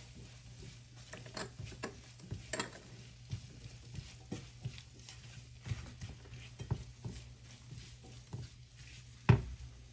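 A spatula stirring chopped vegetables and spice powders in a non-stick frying pan: irregular soft scrapes and taps against the pan, with one sharper knock near the end.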